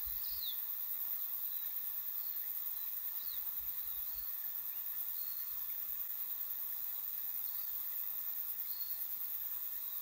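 Steady high-pitched insect chorus, with a few short bird chirps scattered through it, some sliding downward in pitch.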